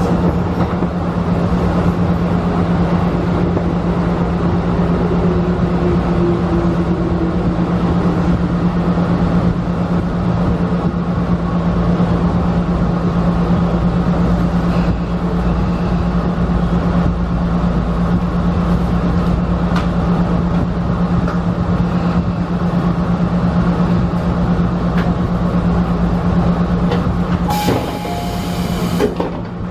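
Tobu electric commuter train running along the track, heard from the driver's cab: a steady rumble of wheels on rails under a constant low motor hum. A brief hiss comes near the end.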